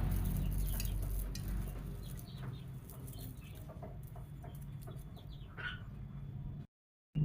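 Chickens clucking now and then over a steady low hum.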